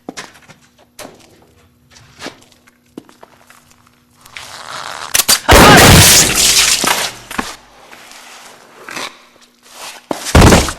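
Footsteps and small clicks, then a rising rush of noise that ends in a very loud shotgun blast about five and a half seconds in, dying away over about two seconds. Another short, loud burst comes near the end.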